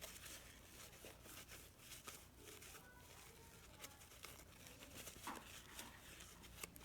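Near silence, with faint rubbing and a few light clicks as small metal divider parts are wiped clean.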